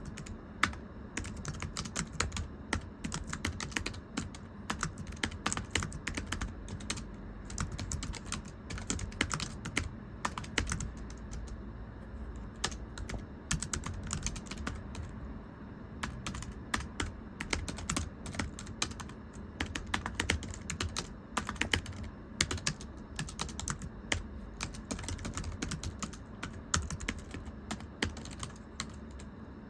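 Typing on a very thin, low-profile computer keyboard: quick, irregular runs of light, flat-sounding key taps, pausing briefly now and then.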